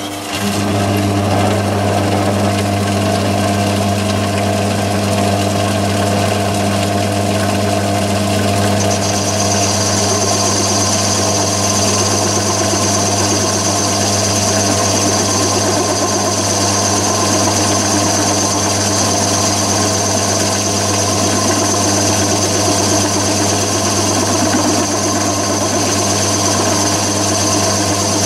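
Myford ML7 lathe running at 500 rpm with a 50 mm boring head and insert boring bar taking a 40 thou cut in a mild steel bore: a steady motor and spindle hum, joined about nine seconds in by a high-pitched ring as the tool cuts, a bit of chatter on the forward cut.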